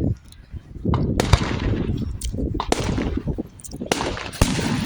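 Fireworks going off: after a brief lull, about seven sharp bangs come in quick succession, with crackling and low rumbling between them.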